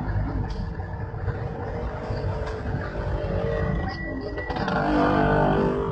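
A jeepney's engine running, heard from inside the passenger cabin as a steady low rumble, with voices of passengers near the end.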